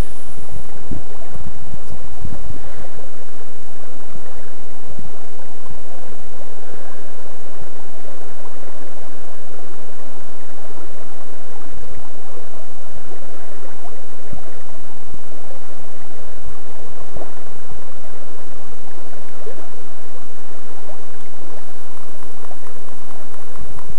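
Steady rush of flowing river water, with a few low thumps from wind or handling on the microphone in the first few seconds.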